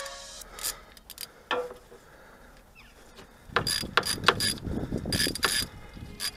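Socket ratchet clicking in quick runs as a bolt is turned, after a few separate metal clicks and taps. The ratcheting starts about halfway through and goes on to the end.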